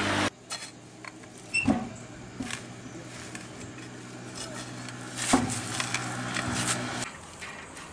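Scattered knocks and clicks of hands and tools working at a truck's front wheel, two of them louder, over a low steady hum that stops near the end.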